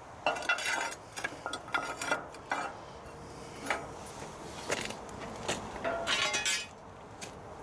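Pieces of steel angle iron clinking and clanking against each other and the cast-iron angle shear as they are handled and set into its blade opening: a dozen or so short ringing metal knocks, stopping about a second before the end.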